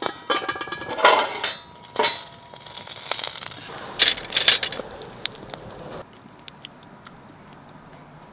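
Irregular clattering and clinking of camp cookware and utensils being handled, loudest about a second in and again around four seconds. It stops abruptly about six seconds in, leaving a quiet background with a few light ticks and three short high chirps.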